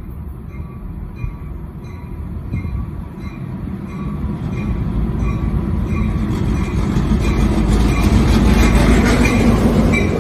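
Norfolk Southern diesel freight locomotive approaching and running past, its engine and wheel noise building to a peak near the end as the cars begin to pass. Its bell rings steadily, about three strokes a second.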